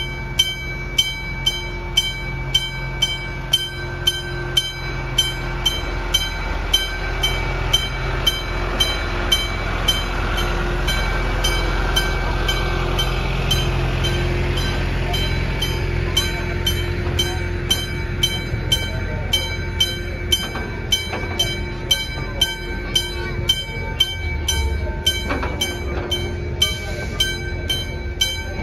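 Level-crossing warning bell ringing steadily, about two strikes a second, while the Dreamworld Express park train and its open carriages rumble past, the rumble loudest through the middle.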